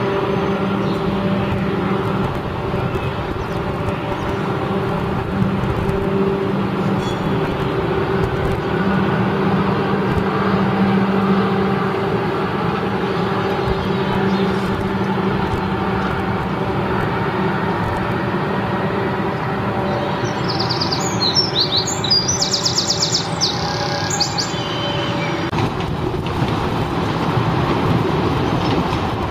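Passenger trains moving slowly through a rail yard: a steady rumble with a low, even hum. A bird chirps briefly about two-thirds of the way through, and near the end a second train passes closer.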